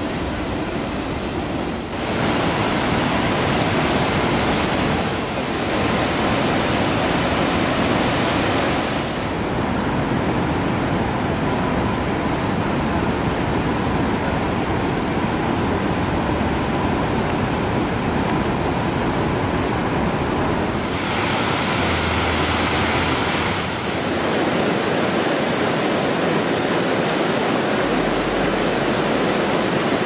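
Steady rush of a large waterfall and river rapids in monsoon flood, with no pitched sound in it; the tone of the rushing water shifts several times.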